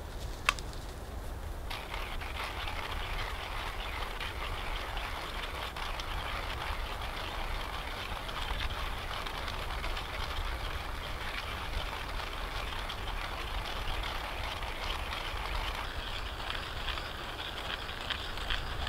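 Steady hiss of wind through spruce and pine trees, setting in a couple of seconds in, over a low rumble of wind on the microphone. There is a single sharp click about half a second in.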